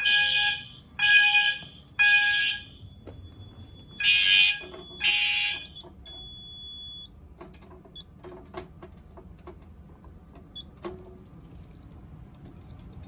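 Fire alarm horns sounding a temporal-three evacuation pattern: three short blasts a second apart, a pause, then two more blasts before the alarm cuts off about six seconds in. Faint clicks and knocks follow.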